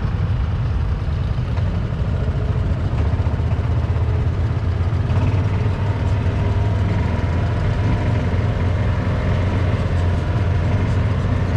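Engine of a slow-moving vehicle running steadily, an even low drone with no change in speed.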